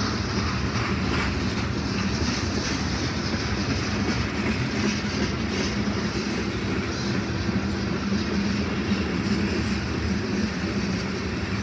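Freight train of covered hopper and tank cars rolling slowly past, a steady rumble of steel wheels on the rails.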